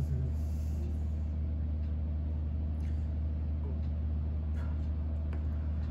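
A steady low hum with a few faint, short clicks and taps over it.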